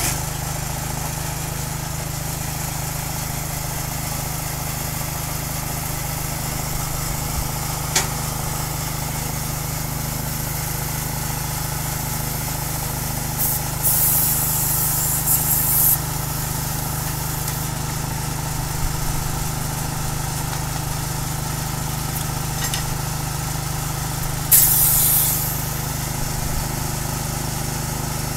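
Small petrol-engine air compressor running steadily, with short hisses of air from the inflator hose at the tyre valve about 14 seconds in and again near 25 seconds, while a car tyre is being pumped up.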